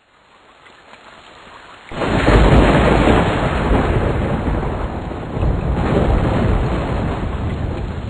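Rain fading in out of silence, then a sudden loud thunderclap about two seconds in that rumbles on over the rain, swelling again near the end.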